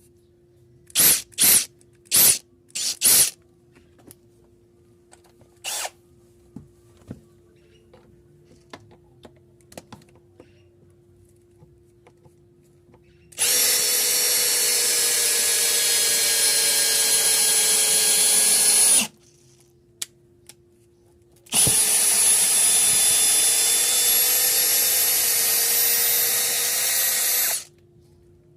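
Brushless 18 V cordless hammer drill/driver motor: a few quick trigger blips, then two steady runs of about five to six seconds each with a high whine.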